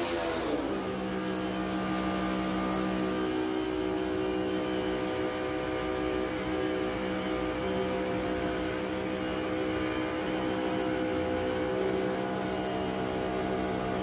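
Pressure washer's motor and pump running with a steady hum. About half a second in, the hiss of the spray fades and the hum drops in pitch.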